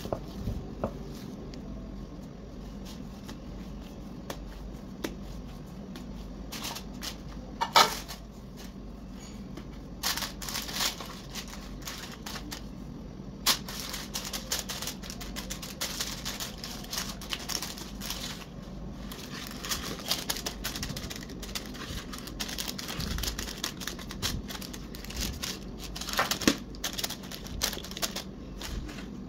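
Baking paper and plastic wrap crinkling and rustling under gloved hands as dough is handled into a paper-lined loaf pan. The crackles are irregular, sparse at first with one sharp loud one about eight seconds in, then dense and continuous through the second half.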